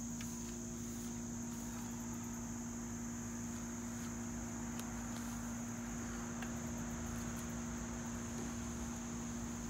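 Steady high-pitched chorus of crickets, with a steady low hum underneath and a few faint clicks.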